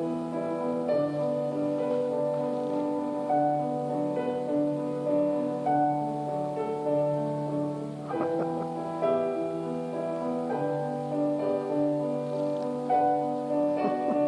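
Slow instrumental background music with held notes and chords that change every second or two.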